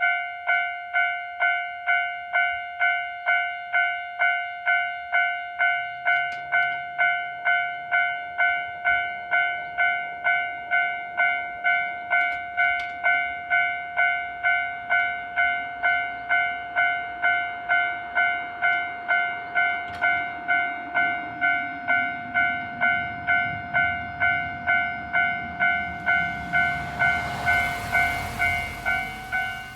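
Japanese level-crossing warning bell ringing in its normal tone, a steady repeating ding about one and a half times a second. Near the end a train runs through the crossing, and its rumble rises over the bell.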